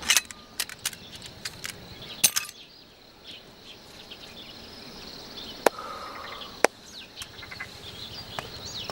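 A quick run of sharp metallic clicks and clatter from handguns being handled, then a lull and two more single clicks a second apart. Underneath is a steady chorus of insects chirring, with a few bird chirps.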